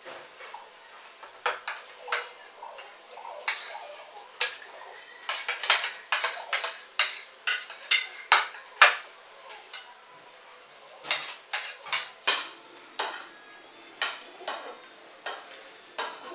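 Metal spoons clinking and scraping against ceramic plates as two people eat, in many quick irregular clicks. A thin high squeal comes and goes through the middle.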